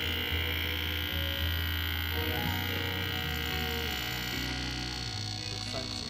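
Benchtop ultrasonic cleaner running with vinegar in its tank: a steady electric buzz with a high, hissing whine from the agitated liquid.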